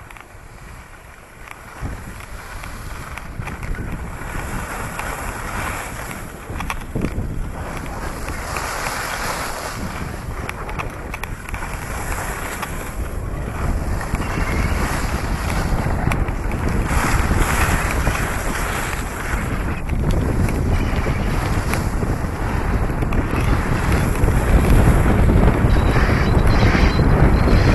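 Wind buffeting the microphone with a rushing, roaring haze, growing steadily louder.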